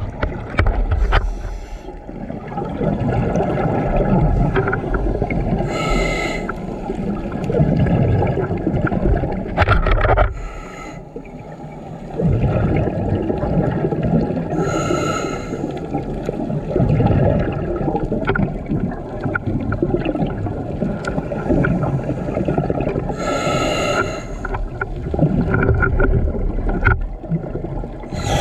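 Scuba diver breathing through a regulator underwater: short hissing inhalations every several seconds, each followed by a long low rumble and gurgle of exhaled bubbles.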